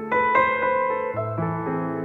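Background piano music, a new note or chord struck every fraction of a second.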